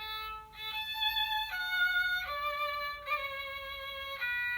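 Violin playing a short tune of about six held notes, each sustained rather than dying away, with the last note held past the end. It is one of the instrument sound effects of a children's sound book.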